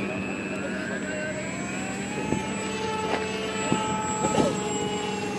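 Radio-controlled model airplane's motor and propeller whining as it flies past, the pitch rising over the first two seconds and then holding steady.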